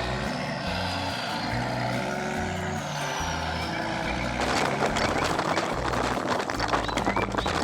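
Heavy machinery engine running with a hiss over it. About four and a half seconds in, a dense rattling crackle joins and it gets a little louder.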